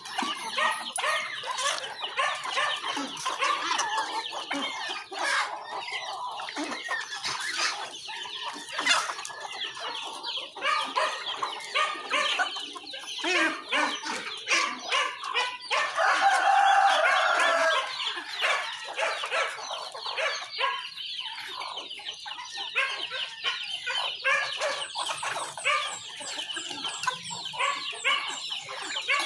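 A flock of chickens clucking and squawking without pause as they crowd in to feed. A rooster crows once about sixteen seconds in.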